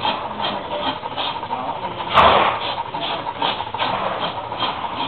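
Hand tool scraping a draft horse's hoof during a trim, in short repeated strokes a few times a second, with one much louder stroke about two seconds in.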